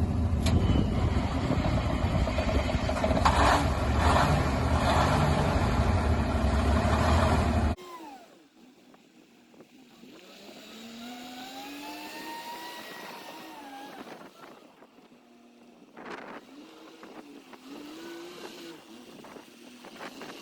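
M816 military wrecker's engine working under heavy wind noise on the microphone. After a sudden cut about eight seconds in, the engine is heard more faintly, its pitch rising and falling as it revs up and down.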